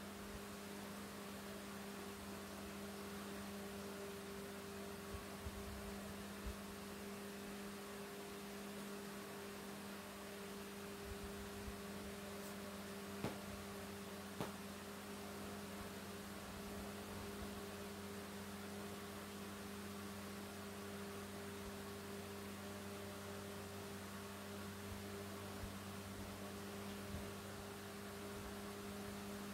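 A steady hum that holds one pitch throughout, with a few faint short ticks now and then.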